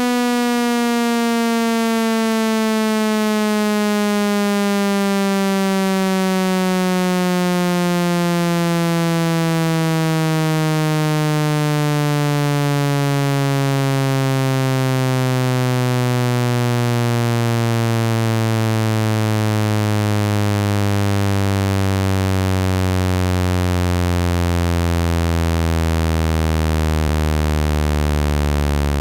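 Synthesized buzzy tone, rich in overtones, gliding steadily down in pitch and stopping abruptly at the end. It is a speaker water-eject sweep, meant to vibrate trapped water out of a phone speaker.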